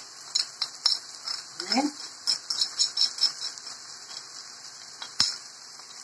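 Metal spoon clinking and scraping against a small plate as paprika is spooned into a frying pan, a string of light ticks with one sharper knock about five seconds in.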